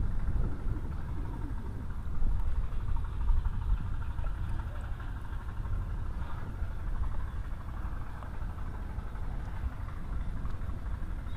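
Wind buffeting the microphone, a gusty low rumble over a steady outdoor hiss.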